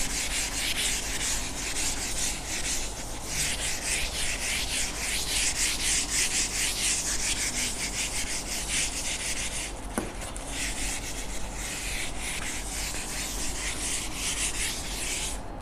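Handheld eraser rubbing across a whiteboard in quick back-and-forth strokes, wiping off marker writing, with brief breaks about 3 seconds and 10 seconds in.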